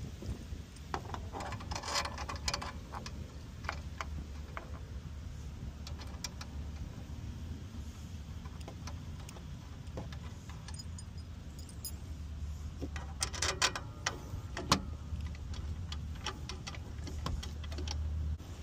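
Small metal screws and a hex key clinking and rattling against the aluminium frame of a laminate floor cutter as the screws are started by hand. The light clicks come in scattered clusters, one about two seconds in and a busier one around thirteen to fifteen seconds in, over a steady low rumble.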